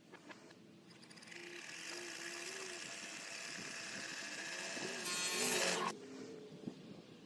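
Small power tool motor whirring, heard played backwards: it builds up over a few seconds, is loudest near the end, then cuts off suddenly.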